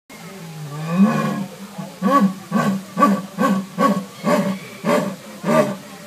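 Jaguar calling: one longer rising grunt about a second in, then a regular run of short hoarse grunts about two a second, the jaguar's sawing call.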